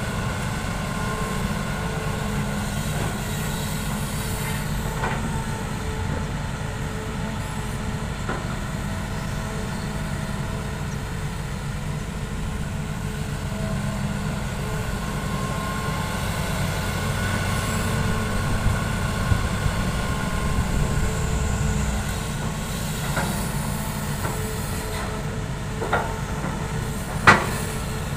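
Hitachi hydraulic excavator's diesel engine running steadily as it works, with a few sharp metallic clanks, the loudest near the end.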